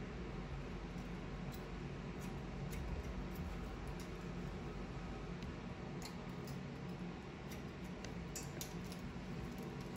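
Hair-cutting shears snipping a mannequin's hair: scattered faint clicks, with a quick run of them near the end, over a steady low room hum.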